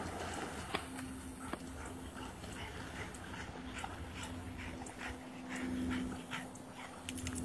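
A dog whining: one steady, drawn-out whine with short breaks, along with quick panting breaths.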